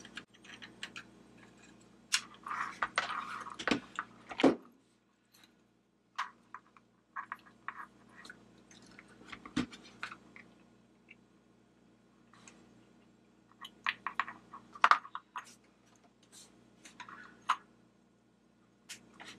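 Handling sounds of soldering repair work on a flashlight's LED board: scattered small clicks, taps and scrapes of a soldering gun, needle-nose pliers and wires on a workbench mat. A low hum stops with a click about four and a half seconds in.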